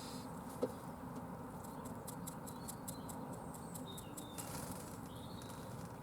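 Fantail doves in their loft making faint, light ticking and scratching sounds, with a small knock near the start and a few brief, faint high peeps.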